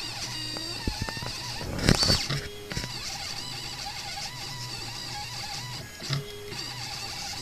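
Stepper motors of a home-built CNC machine running a job, whining at pitches that waver up and down as the axes change speed. There is a louder burst of noise about two seconds in.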